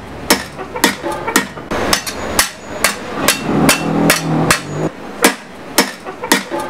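Claw hammer beating a strip of corroded scrap metal on a metal work surface: a steady run of sharp metal-on-metal blows, about two a second.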